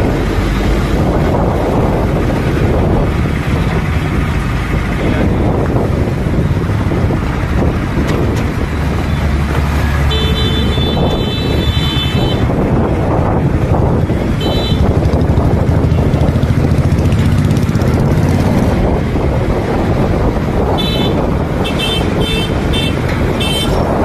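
Steady road traffic noise with vehicle horns honking: one long honk about ten seconds in, a short one a few seconds later, and a string of short toots near the end.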